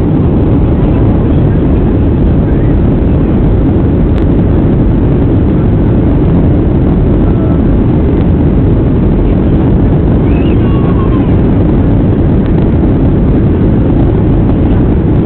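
Boeing 737 cabin noise heard from a window seat: a steady, loud, low rumble of the jet engines and airflow while the airliner climbs out after takeoff.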